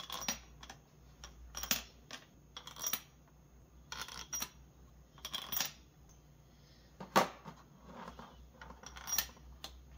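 Steel bolts clinking against metal as they are set by hand into the bolt holes of a 4L60E transmission's front pump: a string of separate sharp clicks, roughly one every second, with the loudest about seven seconds in.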